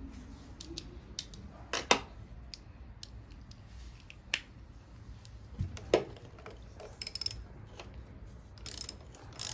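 Scattered sharp clicks and light metallic knocks of hand tools and small engine parts being handled, with a short run of quick clicks about seven seconds in.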